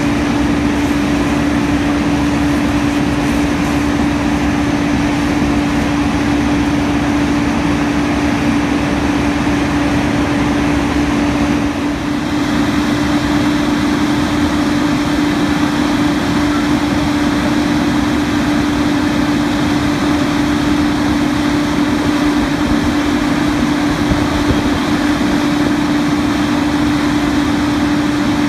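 Fire engine running at a steady, raised speed, making a constant drone with one even tone and no change in pitch.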